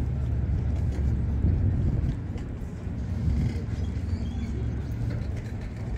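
Street ambience of a city waterfront: a steady low rumble of motor traffic.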